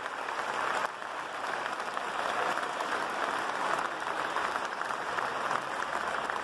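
Audience applauding steadily in a large church.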